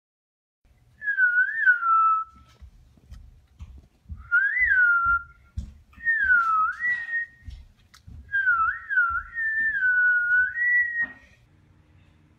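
A person whistling in four short phrases of clear notes that slide up and down.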